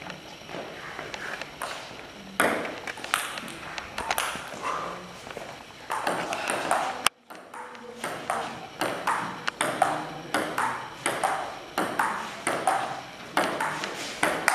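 Table tennis ball being hit back and forth in a rally: sharp clicks of the ball on the bats and the table, about two a second. The sound drops out briefly about halfway through.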